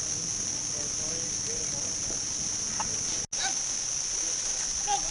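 Steady high-pitched drone of insects in tropical riverside forest, cut off for an instant a little over three seconds in before carrying on unchanged.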